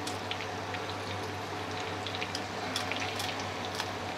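Mutton pieces in a karahi sizzling and bubbling in their own rendered fat: a steady hiss with scattered small pops and crackles.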